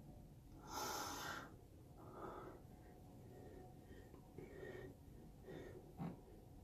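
A person breathing out sharply near the microphone about a second in, followed by a few softer breaths and a short click near the end.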